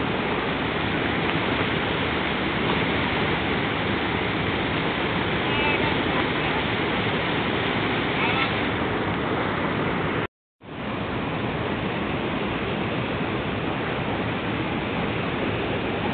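Fast whitewater river rushing over rocks: a steady rush of water. The sound cuts out completely for a split second about ten seconds in.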